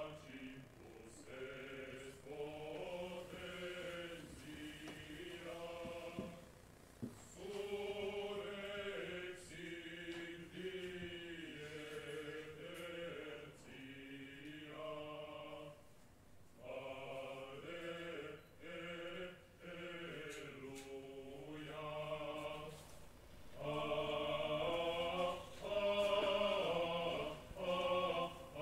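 Unaccompanied a cappella singing in a slow, chant-like style: long sung phrases broken by brief pauses.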